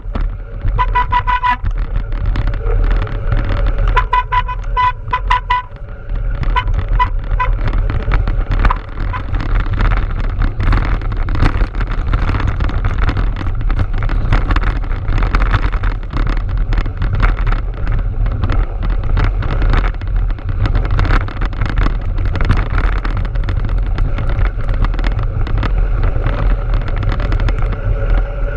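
Mountain bike ridden over a snowy trail, heard from a bike-mounted camera: a steady low rumble with a constant patter of rattles, clicks and tyre crunch. In the first few seconds a pulsing high-pitched tone sounds twice.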